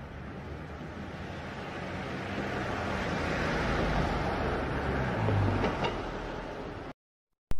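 A rushing noise, like wind or passing traffic, swells slowly, peaks about five seconds in, and cuts off abruptly near the end, followed by one short click.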